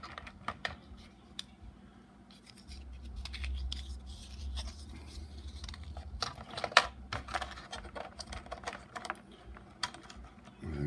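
3D-printed plastic sliding hive entrance being handled: the plastic slide scraping in its groove, with scattered light plastic clicks and taps, the sharpest near the end. A low handling rumble runs through the middle.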